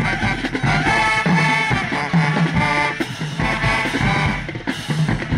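High school marching band playing an upbeat tune in short repeated phrases over a steady bass line.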